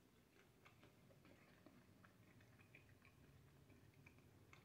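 Faint crunching and clicking of someone chewing a crisp, well-done strip of bacon, in small irregular ticks.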